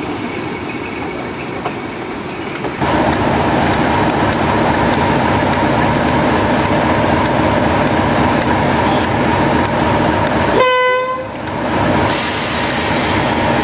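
Wheels squealing as a Class 31 diesel locomotive comes to a stand, the squeal cutting off about three seconds in; then the locomotive's diesel engine idling close by, with one short train horn toot about eleven seconds in, followed by a brief hiss.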